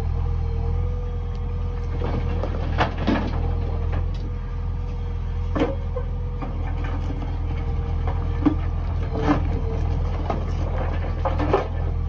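JCB 3DX backhoe loader's diesel engine running steadily as its backhoe bucket digs into stony ground, with several short sharp knocks of rock against the bucket.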